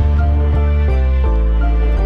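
Instrumental background music with a steady bass, moving to a new note about two to three times a second.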